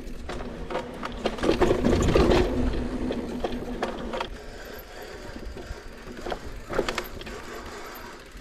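Mountain bike coasting down a dirt singletrack: the rear freehub buzzes in a steady ratchet, with tyre noise on the dirt and rattles and knocks from the bike over bumps, loudest about two seconds in.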